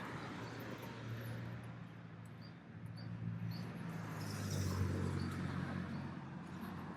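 A motor vehicle's engine running close by, its low hum growing louder toward the middle and then easing, over steady street background noise.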